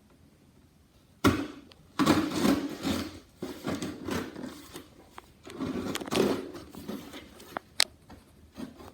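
A cardboard shipping box being opened and its packaging handled: irregular rustling and scraping that starts about a second in, with a sharp click near the end.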